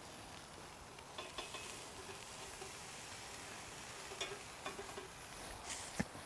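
Beef spider steaks searing on the hot grate of a Big Green Egg MiniMax kamado grill: a faint steady sizzle, with a few light clicks and one sharper click near the end.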